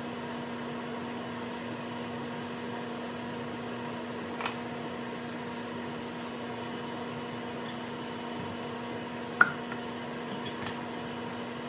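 Steady hum of a wall oven preheating. Over it come a light clink about four seconds in and a sharper clink about nine seconds in, as a stainless pan and a funnel touch a glass cruet.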